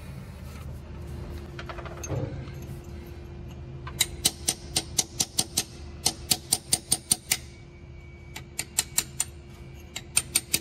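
Hammer tapping a chisel against the shell of a drilled-out broken bolt in a flathead engine block's threaded hole, knocking the fragments loose. Sharp metal taps start about four seconds in and come in quick runs of about four to five a second, with short pauses between runs.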